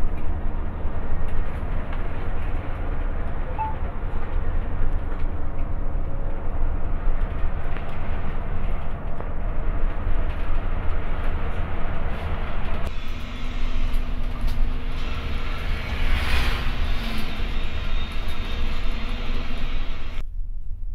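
Coach bus driving, heard from inside the cab: a steady low rumble of engine and road noise with tyre hiss. The sound changes abruptly about two-thirds of the way through and again near the end.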